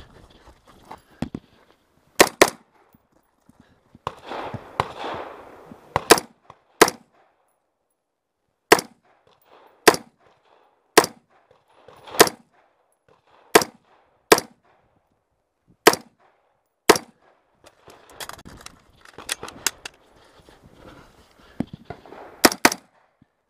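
Semi-automatic rifle firing a course of fire at close range: a quick pair of shots, then single shots roughly a second apart, then another quick pair near the end. Between the strings come the shooter's rustling steps on gravel while moving between positions.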